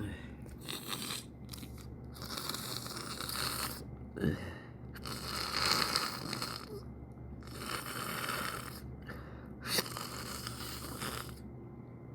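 A person breathing heavily and noisily through the nose and throat between sneezes, in about five long drawn breaths, with two short sharp sniffs about four and ten seconds in.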